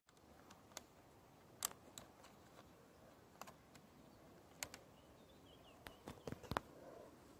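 Sharp plastic clicks and knocks from a trail camera being handled, with a quick run of louder clicks near the end as its case is unlatched and swung open.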